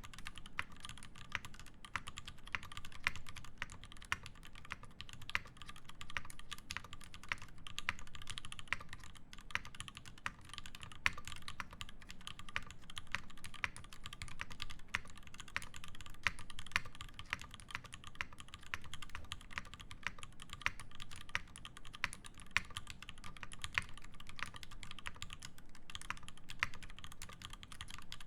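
Fast, continuous typing on an IRON180 mechanical keyboard with lubed Alpaca linear switches, a brass plate and GMK keycaps: a dense, steady run of keystroke clacks.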